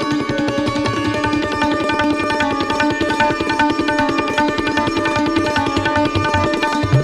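Instrumental background music: a plucked string instrument and fast, steady hand-drum strokes over held notes.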